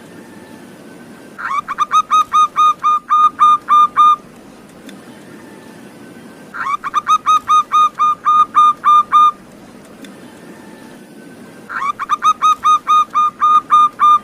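Zebra dove (perkutut) song: three bouts of quick, rhythmic cooing, each a run of about a dozen notes. The bouts begin about a second and a half in and repeat about every five seconds.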